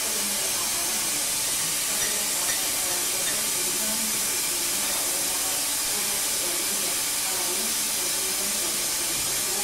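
A steady hiss, with faint voices underneath.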